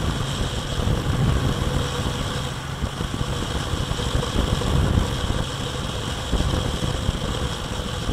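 Motorstar Easyride 150N motorcycle's single-cylinder engine running at a steady cruise of about 100 km/h, mixed with an uneven rumble of wind noise.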